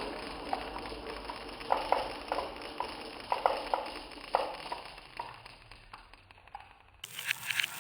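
Glass marbles rolling down a homemade marble run, clicking and knocking against the track and each other at irregular intervals. Near the end the clicks turn sharper and higher.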